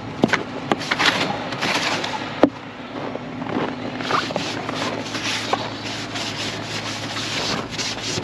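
Snow brush sweeping snow and frost off a car's windows in repeated strokes, with one sharp knock about two and a half seconds in. A steady low hum runs underneath from the car's engine idling to warm up in the cold.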